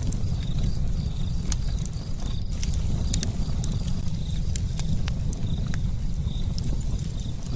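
Fire burning: a steady low rumble with many scattered sharp crackles and pops.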